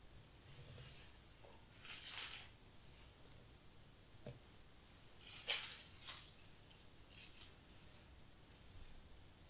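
Dried bunny tail grass stems rustling in several short, dry bursts as they are handled and set into a glass vase, the loudest a little past halfway. There is a light tap about four seconds in.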